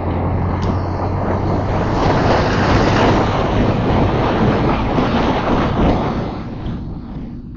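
Wind rushing over the microphone and road noise from a motorcycle riding at speed, with a low engine hum under it; the rush swells louder through the middle and eases near the end.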